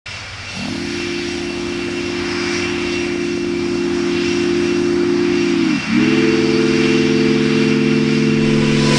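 A sustained synthesizer drone of several held tones that swells in, then changes to a new, lower and fuller chord about six seconds in, over a steady hiss.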